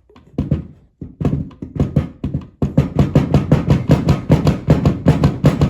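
Music with a steady percussive beat, about four to five hits a second. It starts with a few scattered hits and settles into the even beat about two and a half seconds in.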